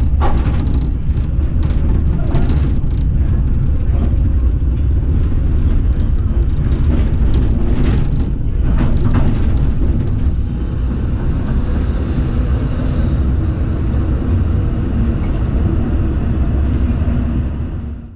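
Onboard running noise of an A1 class tram: a steady low rumble of steel wheels on the rails, with frequent clicks and knocks over the first ten seconds or so as it rolls over track joints and junction crossings. The sound fades out right at the end.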